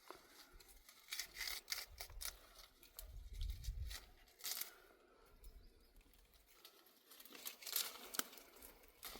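Irregular rustling and crackling in short bursts, with scattered light clicks and a brief low rumble about three seconds in.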